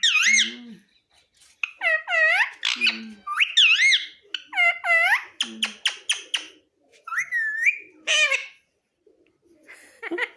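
Alexandrine parakeet (pahadi parrot) calling in a run of short, high squawks, each rising then falling in pitch, with brief pauses about a second in and again near the end.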